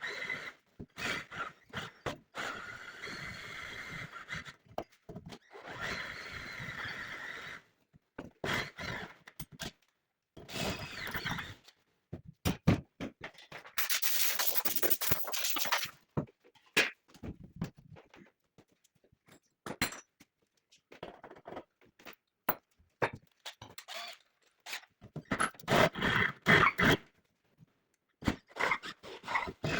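Intermittent metalworking noises: metal scraping and squealing, knocks and clunks, coming in short spells broken by sudden silences, with a hissing rush of about two seconds roughly midway.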